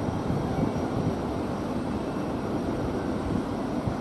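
Southeastern electric multiple-unit train moving off slowly at a terminus platform, a steady low rumble with no distinct tones or knocks.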